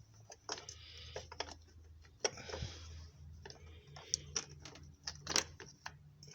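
Irregular light clicks and knocks of a V8 fuel rail and its injectors being worked loose and lifted out of the intake manifold by hand.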